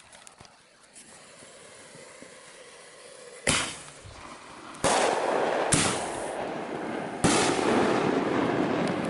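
Fireworks going off: four sharp loud bangs, the first about three and a half seconds in and the rest coming every second or so, each trailing into a lasting rush of noise.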